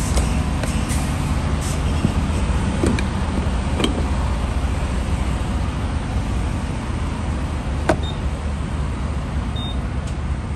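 A diesel engine idling steadily, with a few sharp clicks and two short high beeps near the end.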